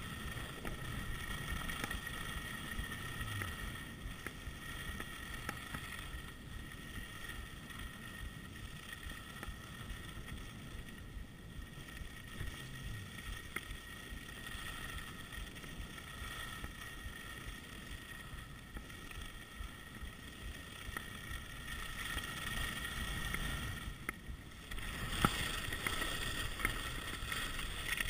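Wind rushing over a GoPro HD2 camera and skis hissing over groomed snow during a downhill run. Near the end there is a single sharp click, after which the rush is louder.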